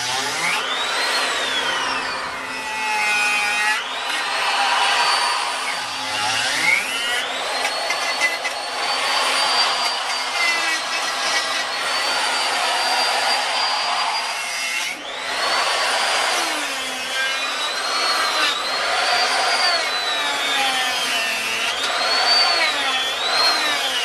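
Corded handheld electric grinder with a carving cutter grinding into wood. Its high motor whine dips and climbs back up in pitch again and again as the cutter bites into the wood and lifts off.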